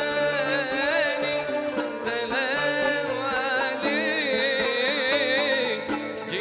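Arabic ensemble music on ney, oud, qanun and riq: a lead melody with wide vibrato and ornaments runs over sustained lower notes and a steady beat on the hand drum.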